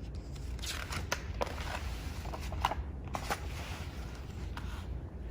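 Quiet room tone with faint rustling and a few soft clicks.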